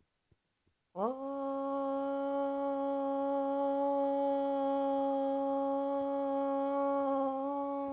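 A woman chanting one long OM on a single steady note, starting about a second in and held to the end. Its tone shifts slightly near the end.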